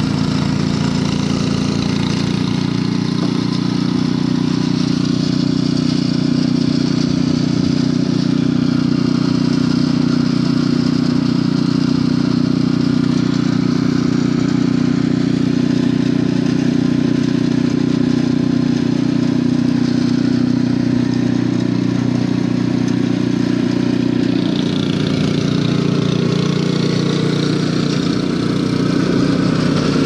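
Two-stage gas snowblower's engine running steadily as the machine throws snow. Its note shifts about three-quarters of the way through.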